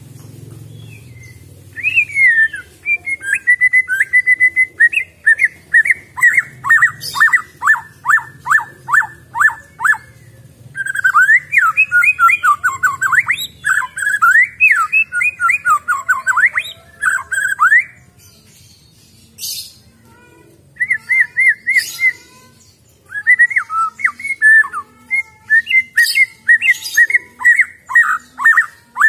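White-rumped shama (murai batu), a wild-caught bird, singing loudly. It gives phrases of quick, repeated down-slurred whistles, then a stretch of fast, varied warbling, starting about two seconds in. There is a pause of a couple of seconds past the middle before it takes up the repeated whistles again.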